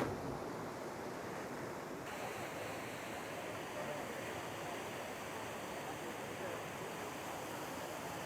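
Waterfall rushing in a steady roar of falling water, growing brighter and hissier about two seconds in.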